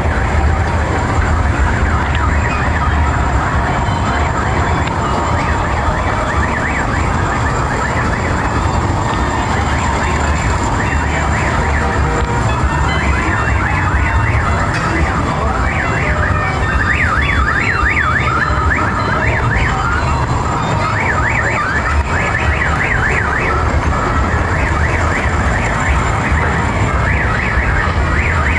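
Funfair din: a steady low hum, and from about halfway on, fast warbling siren-like tones sweeping up and down over and over.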